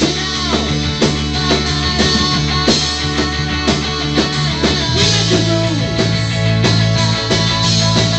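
Live rock band playing: electric guitars, keyboard and drums, with a steady beat.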